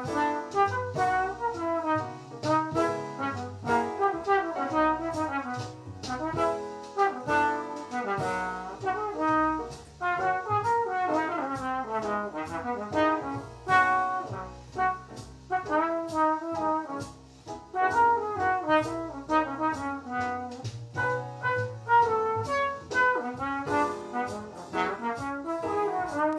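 Solo brass instrument playing a jazz etude melody in a swing style. It plays over an accompaniment with a walking low bass line and regular percussive ticks.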